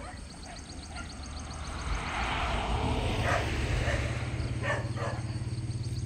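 A motor vehicle passing on the nearby road: its noise swells over the first couple of seconds, then settles into a steady low engine hum.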